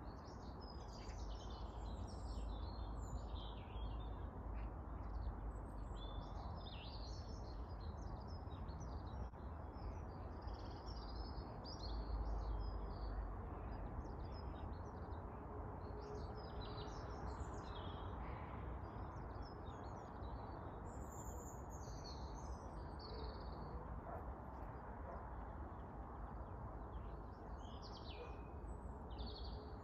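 A flock of birds calling, many short high chirps and squawks coming in loose clusters, over a steady low outdoor rumble and hiss.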